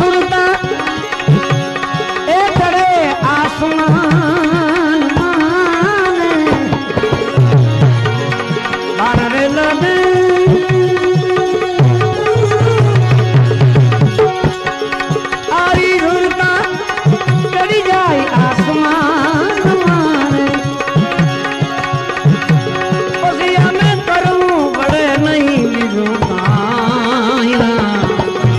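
Instrumental interlude of a Gujarati bhajan: hand drums keep the rhythm while a melodic instrument plays a winding, ornamented melody over steady held drone tones, with deep bass drum strokes coming through now and then.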